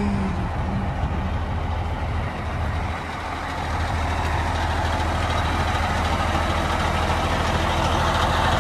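Diesel engine of a 1997 Freightliner FLC112 wrecker idling steadily with a low drone, a little louder from about four seconds in.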